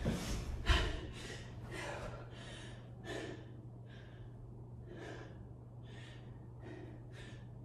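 A woman breathing hard and fast from exertion, short quick breaths about two a second. A soft thump comes under a second in as she gets down onto the carpeted floor, over a faint steady hum.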